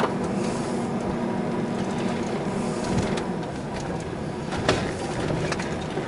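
Car driving slowly, heard from inside the cabin: a steady rumble of engine and road noise, with a low hum that fades out about three seconds in and a couple of sharp clicks.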